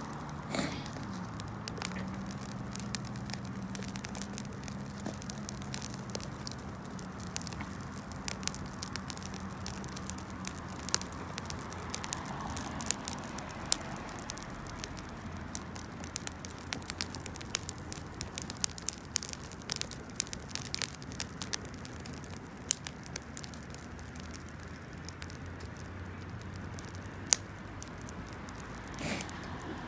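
Wood campfire crackling, with sharp pops at irregular intervals.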